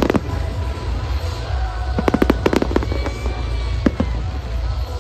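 Fireworks display: aerial shells bursting with sharp bangs in a cluster at the start and another about two seconds in, with single bangs after, over a steady low rumble.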